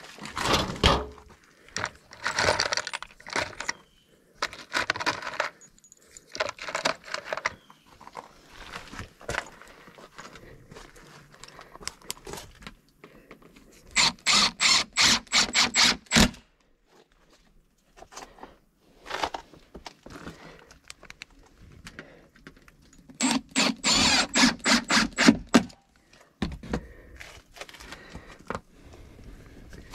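Cordless impact driver running in two bursts of about two and a half seconds each, a little before the middle and again later, driving screws through sheet-metal fascia. Between the bursts, sheet metal and hardware rattle and clatter as they are handled.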